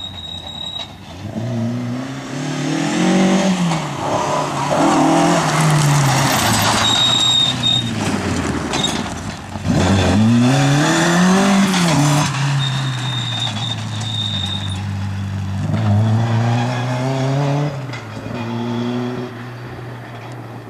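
Ford Escort Mk2 rally car's engine revving hard on a gravel stage. The engine climbs in pitch, drops off the throttle and picks up again several times, with a loud rush of tyres and flung gravel as the car passes close in the middle.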